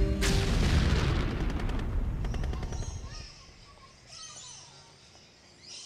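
A sudden blast with a rapid run of cracks like machine-gun fire over a deep rumble, dying away over about three seconds: a war sound effect. Faint bird chirps follow.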